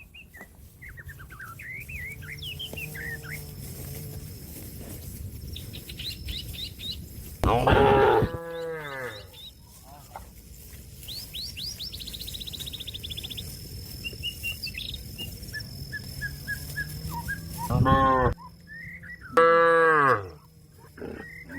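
Cow mooing loudly three times: once about seven seconds in, then twice in quick succession near the end. It is a cow calling to a companion that is out grazing. Birds chirp in the quieter stretches between the moos.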